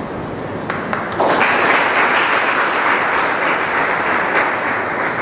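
Audience applauding, the clapping breaking out suddenly about a second in and carrying on steadily.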